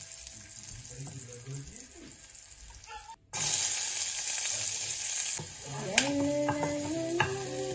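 Food frying in oil in a nonstick pan. It is quiet at first, then after a short break a loud steady sizzle of diced vegetables starts about three seconds in. A spatula clicks against the pan twice near the end.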